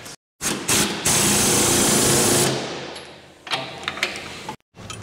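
Impact wrench hammering on a bolt for about a second and a half, then winding down. A few metallic clinks of a spanner on the bolts follow.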